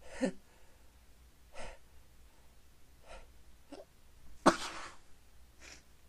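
A person sneezing: a few short breathy sounds, then one loud sneeze about four and a half seconds in.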